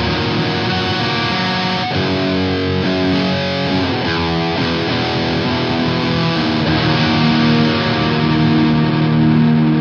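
Rock-metal music led by distorted electric guitar playing long-held notes and chords.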